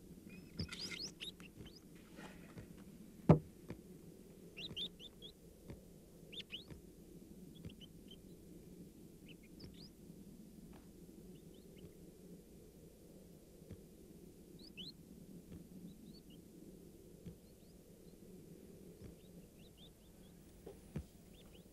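Rats squeaking faintly in scattered short, high chirps over a low steady hum. A single sharp knock comes about three seconds in.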